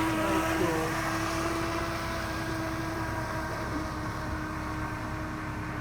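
Motor of a radio-controlled hydrofoil boat running with a steady whine under a low rushing noise, easing off slightly over the first couple of seconds.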